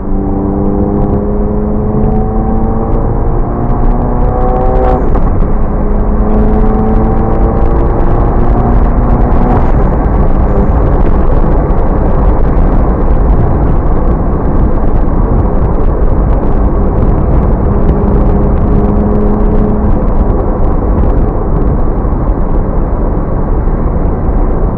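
Exhaust of a Mk7 VW Golf GTI's turbocharged 2.0-litre four-cylinder through a 5150 Racing exhaust, accelerating hard: the pitch climbs through a gear, breaks at a shift about five seconds in, climbs again and shifts near ten seconds. After that it drones more steadily under a heavy low road rumble.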